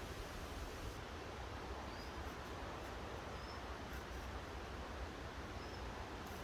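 Steady outdoor background noise, a low rumble under an even hiss, with a few faint, short high chirps scattered through it.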